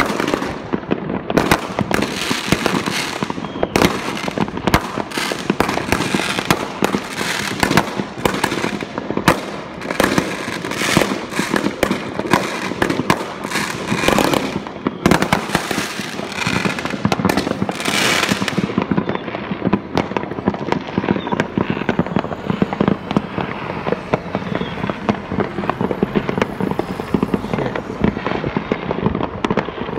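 Many fireworks going off at once across the neighbourhood, rockets bursting in a dense, continuous barrage of overlapping bangs and cracks. About two-thirds of the way through, the sharpest cracks fall away, leaving a duller rumble of more distant bangs.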